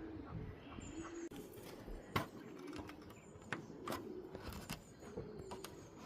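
Racing pigeons cooing softly, low wavering calls, with a few sharp taps about two, three and a half, four and nearly five seconds in.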